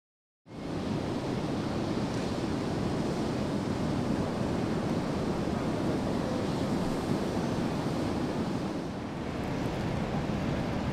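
Sea surf breaking steadily on a beach, with wind, coming in after a brief moment of silence at the start.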